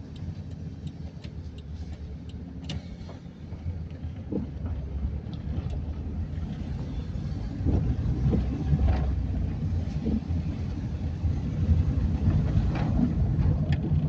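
Car engine and road rumble heard from inside the cabin while driving slowly, getting louder about halfway through.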